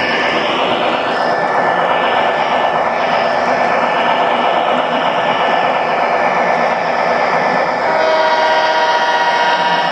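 MTH model train running on the layout track, heard from aboard: a steady rush of wheel and drive noise. About eight seconds in, a set of steady tones joins and the sound gets slightly louder.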